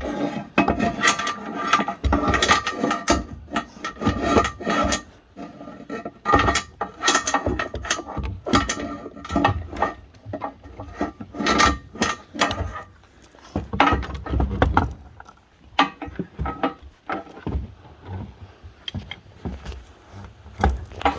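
Repeated knocks, scrapes and creaks of wood and metal as a wooden chicken coop is worked and shifted for loading onto a trailer.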